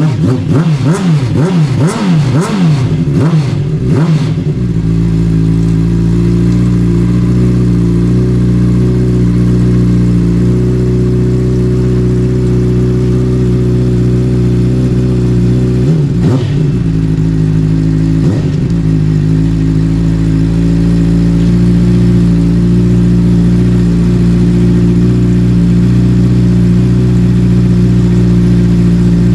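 Honda CBR600RR's inline-four engine revving in several quick throttle blips, then settling to a steady idle about four seconds in, with two more short blips near the middle.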